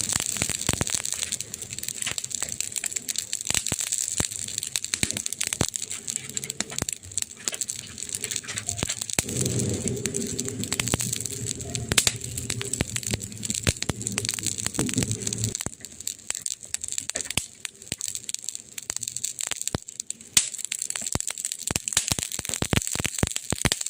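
Wood fire crackling, with dense irregular snaps and pops. From about nine seconds in, a low pitched hum sounds under the crackle for about six seconds, then stops.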